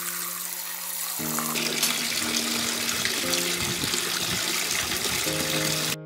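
Water from a small tiered cement garden waterfall pouring from two spouts into the pool below, splashing steadily and growing louder about a second and a half in. Soft piano music plays underneath.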